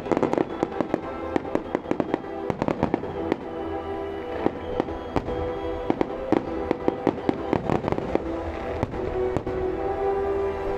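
Aerial fireworks display: a dense, irregular run of bangs and crackles from bursting shells, with held music tones playing underneath.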